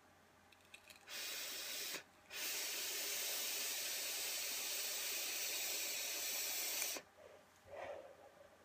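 Sub-ohm box-mod vape, a 0.33-ohm coil fired at 50 watts, hissing as it is drawn on: a short pull about a second in, a brief break, then one long draw of about four and a half seconds that cuts off sharply. A soft exhale of the vapour follows near the end.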